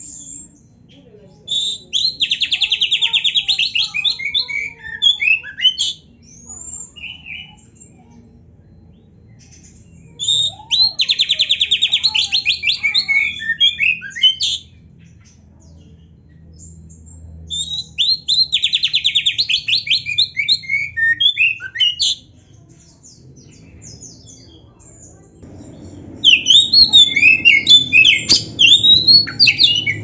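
Oriental magpie-robin singing in bouts. Each bout opens with a rapid, even trill, then varied short whistled notes. Three bouts come about 8 seconds apart, and a denser run of varied notes fills the end.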